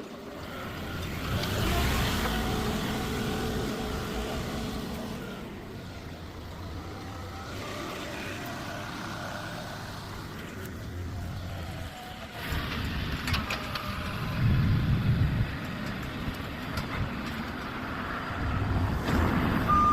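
Heavy vehicle engine running steadily, rising in level for a few seconds about twelve seconds in and again near the end.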